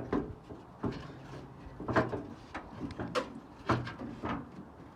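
A series of separate clunks and knocks, about six in five seconds, from parts and tools being handled while a truck's front end is taken apart.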